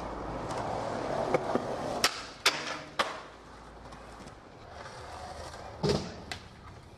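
Skateboard wheels rolling on concrete, with sharp clacks of the board hitting the ground: four within the first three seconds, then a heavier knock near the end.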